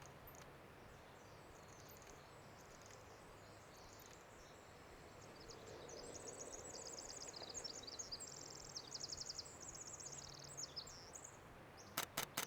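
Pacific wren singing its long, rapid, tumbling song of high trills and twitters, which runs for about five seconds from the middle of the stretch. Three sharp clicks come near the end.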